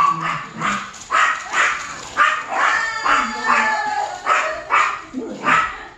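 A dog barking over and over, about two short barks a second.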